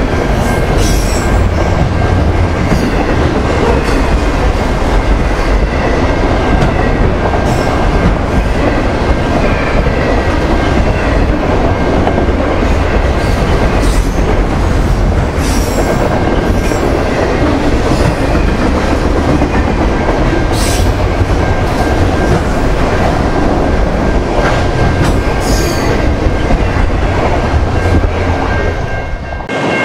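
A long freight train of autorack cars passing close at track speed, with a steady heavy rumble of wheels on rail. Over it come scattered sharp clanks and short high squeals, and a faint steady high whine.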